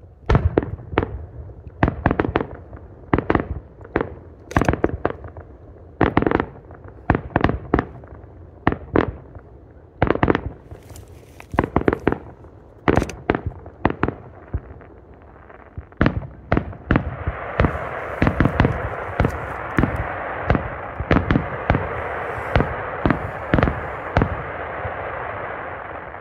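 Aerial firework shells bursting in quick succession, sharp booms coming several a second at times. From about two-thirds of the way through, a dense continuous crackle runs under the bursts and dies away near the end.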